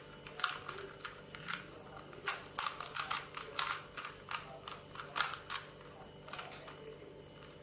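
3x3 Rubik's Cube being solved by hand, its plastic layers clicking as they are turned quickly in a fast, irregular run of clicks that grows sparser near the end.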